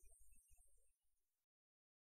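Near silence: a faint low rumble dies away about halfway through, then the sound drops out completely.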